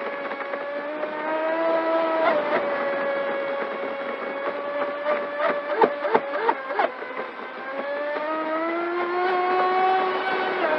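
Pro Boat Sonicwake 36 RC boat's brushless motor whining steadily under throttle. Around the middle come several sharp slaps as the hull hits the chop, then the whine rises in pitch as the boat speeds up again.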